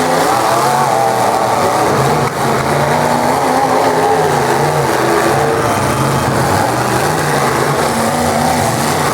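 Engines of full-size demolition derby cars revving hard, several pitches rising and falling together.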